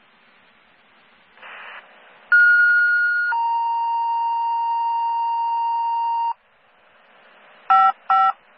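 Fire dispatch radio sending two-tone sequential paging tones to alert a fire station: a higher tone held about a second, then a lower tone held about three seconds, over faint radio hiss. Two short beeps near the end.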